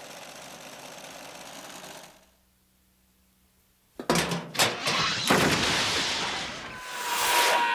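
A steady hissing din for about two seconds, a short stretch of near silence, then from about four seconds in a loud jumble of cartoon crash and bang effects as a dust cloud billows, with a steady tone coming in near the end.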